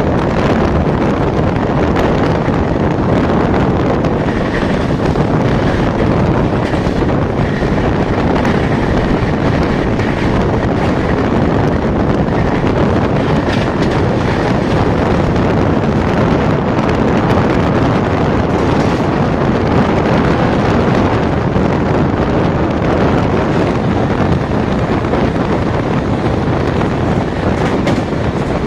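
Wind buffeting the microphone at an open door of an express passenger train running at high speed, mixed with the train's running noise: a loud, steady rush that barely changes.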